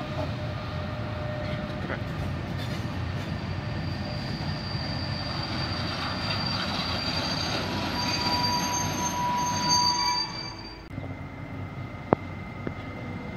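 Freight train of covered hopper wagons rolling past, its wheels squealing on the rails in high, drawn-out tones over the steady rumble. The sound drops sharply about eleven seconds in, and a single sharp click follows.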